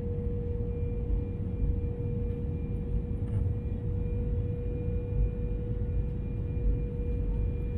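Cabin noise inside an Airbus A321 on final approach with its flaps fully extended: a steady low rumble of engines and airflow, with a steady hum above it.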